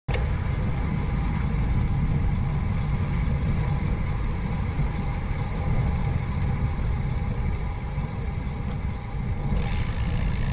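Steady low wind rumble buffeting a bicycle-mounted action camera's microphone while riding at about 8 to 11 mph.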